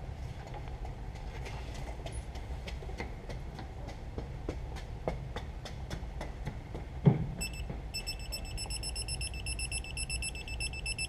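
A wrench ratchets in a run of light clicks, with one louder knock about seven seconds in. Then a digital torque wrench starts beeping in rapid, even pulses as a flywheel bolt is pulled toward its 101 lb-ft torque spec.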